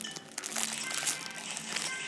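Clear plastic bag crinkling as a bagged squishy toy is handled and turned in the hands, growing denser about half a second in, over background music.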